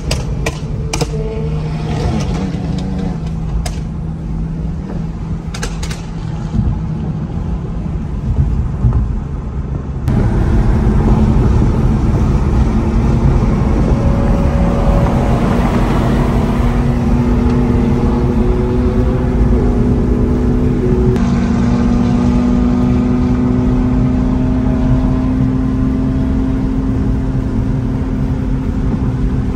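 Car engine and road noise while driving. The engine note rises slowly around the middle as the car pulls, and the sound changes abruptly twice, about a third and about two-thirds of the way in.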